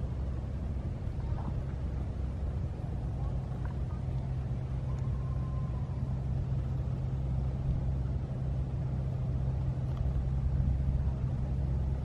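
A steady, low engine drone holding one pitch.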